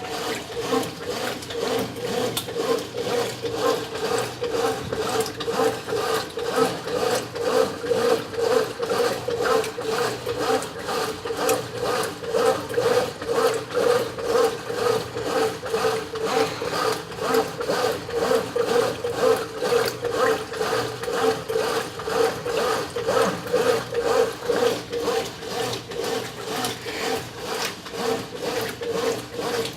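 Brastemp 9 kg top-loading washing machine agitating clothes in a high water level during the wash: a steady motor hum with a rhythmic swish about two to three times a second.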